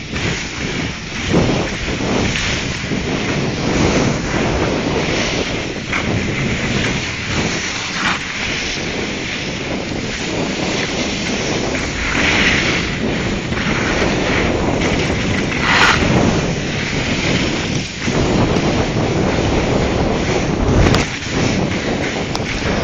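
Wind rushing over a moving microphone during a descent on a ski slope: a steady, loud rough noise with a few brief surges.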